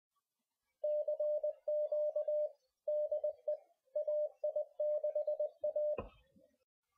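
Morse code sent as a single steady mid-pitched sidetone, keyed in quick runs of short and long elements. A sharp click follows near the end.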